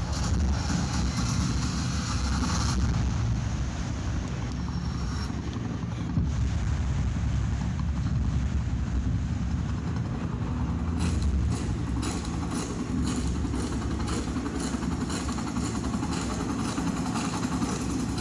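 Loud, steady low rumble of bass-heavy music from a large dance sound system.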